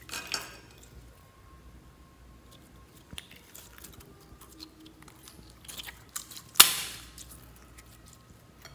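Sticky slime being squeezed and stretched by hand, making scattered wet crackles and clicks. There is a pop just after the start and a much louder air pop about two-thirds of the way through.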